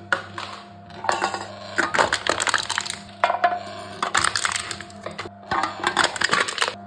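Aluminium drink cans being crushed by a machine, one after another: repeated bursts of crinkling and cracking metal, roughly one a second, with a steady low hum underneath.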